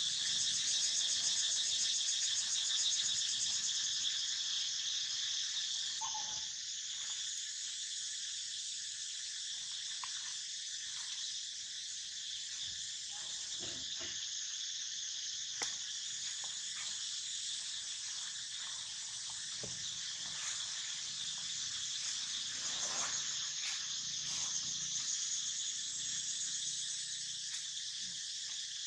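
Steady high-pitched drone of an insect chorus, a little louder for the first few seconds, with a few faint short sounds and one sharp click over it.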